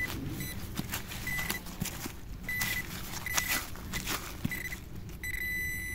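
A metal detector sounding a high, steady beep over a target in the dig: several short beeps at uneven intervals, then a longer unbroken tone near the end. Short knocks and scrapes of digging in soil come in between.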